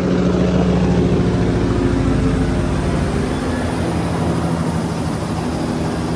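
Police helicopter flying overhead: a steady, loud rotor noise with a rapid even beat of the blades over a steady low engine hum.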